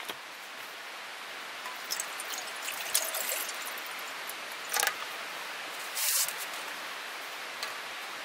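Steady rushing of a mountain stream, with a few short clicks and rustles of handling about 2, 3, 5 and 6 seconds in.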